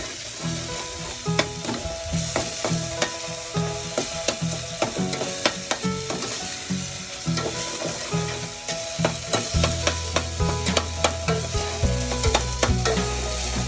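Onions and garlic sizzling as they sauté in olive oil in a pan. A cooking utensil stirs them, clicking and scraping against the pan again and again.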